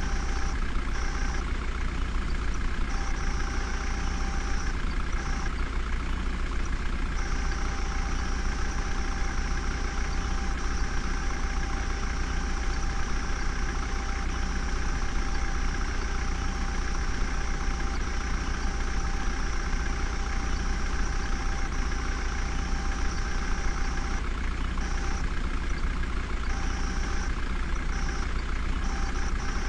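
Heavy diesel engine running steadily at low revs, with a strong low hum. A thin high whine cuts in and out several times, and runs unbroken through the middle stretch.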